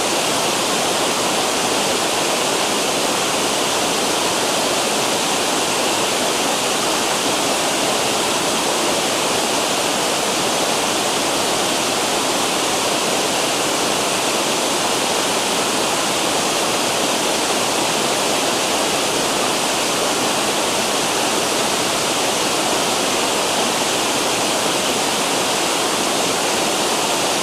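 River water rushing over cascading waterfalls: a steady, unbroken rush.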